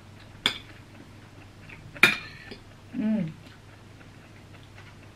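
Metal cutlery striking ceramic plates while eating: a sharp click about half a second in and a louder, briefly ringing clink about two seconds in, with faint scraping ticks between. Just after three seconds comes a short hummed "mm" of someone eating.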